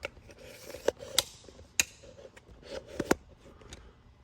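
Plastic inner door panel of a 2022 Toyota GR86 being pried off by hand: about four sharp clicks as its retaining clips pop loose, with plastic rustling between them.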